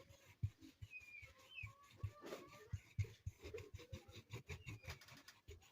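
Faint scattered taps and rubbing as oil is worked by hand onto a speaker's surface, with a few brief faint squeaks.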